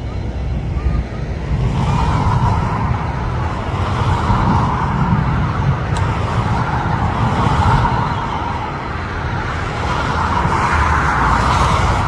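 Jet aircraft engine noise that swells about two seconds in and keeps rising and easing, with wind buffeting the phone's microphone.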